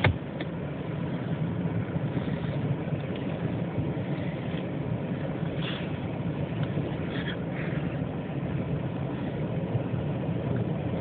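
Car engine running steadily, with low hum and road noise heard from inside the cabin.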